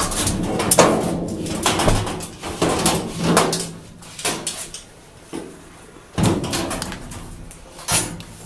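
Knocks, scrapes and clatter of a top-loading washer's plastic tub and basket parts being handled by hand, in uneven bursts.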